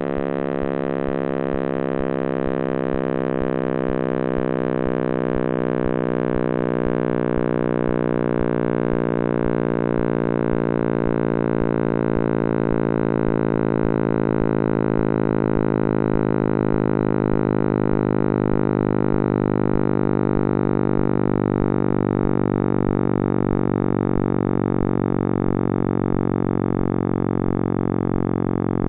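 Synthetic sonification of the cosmic microwave background, built from Planck data and raised by a factor of 10^26 into hearing range: a dense, steady hum of many stacked tones that slowly falls in pitch, with a regular low pulse underneath.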